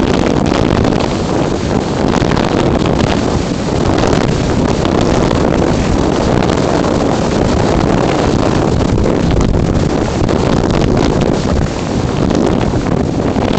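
Steady rush of wind buffeting the microphone of a camera mounted on an unpowered RC slope glider in flight, the airflow of the glider's speed through the air.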